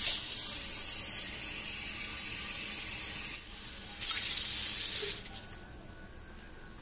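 Water from a tap running into a plastic container and splashing into an aluminium basin below, as the container is rinsed and refilled: a steady stream for about three and a half seconds, then a louder gush for about a second before it stops.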